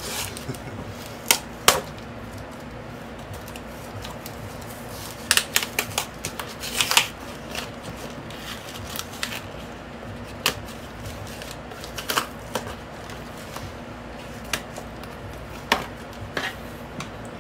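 Cardboard record mailer being torn open and handled by hand: scattered sharp tearing and crackling sounds, with a busier run about five to seven seconds in, over a steady fan hum.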